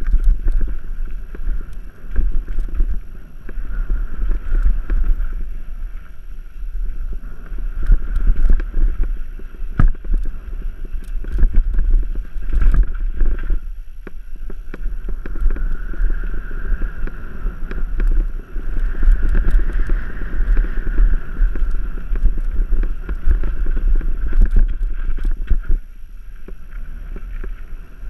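Mountain bike riding fast down dirt singletrack, heard on the action camera's microphone. Heavy wind rumble on the mic and tyres running over dirt are joined by frequent sharp clicks and knocks from the chain and frame over bumps.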